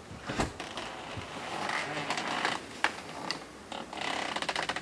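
A storm door shutting with a low thump about half a second in, followed by rustling of clothing and gear, scattered knocks, and a quick run of clicks near the end.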